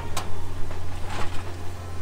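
Metal tongs clinking and scraping against a stainless steel tray of fried chicken, a few sharp clinks, with a steady low hum underneath.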